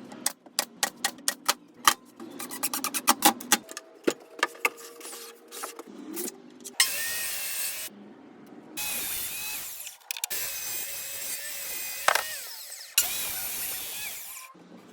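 Workshop tool sounds in quick cuts: a fast run of sharp clicks and knocks, then four loud bursts of power-tool noise, each cut off abruptly.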